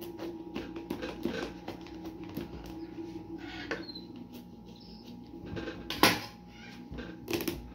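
A kitchen knife sawing and scraping through the rind of a large pumpkin, a run of short rasping strokes. There is a sharp knock about six seconds in and another shortly before the end.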